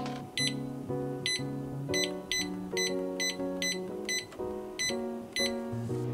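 Background music: a light plucked-string melody with a steady high ticking beat.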